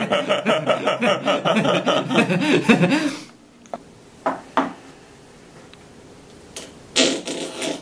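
Men laughing for about three seconds, then a quiet room with a few light knocks as a small plastic jar of Flarp noise putty is handled on the table, and a short louder noise near the end.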